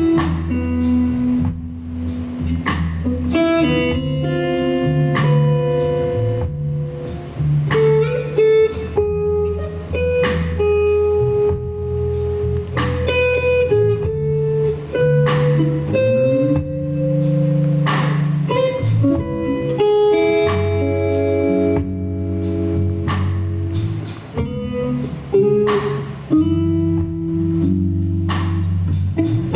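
Two guitars played live on stage: a plucked melody of picked notes over sustained low notes, with no drums.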